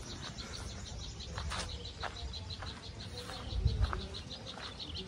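An insect chirping in a steady, rapid pulse, about six chirps a second, over a low rumble, with a brief louder low bump about three-quarters of the way through.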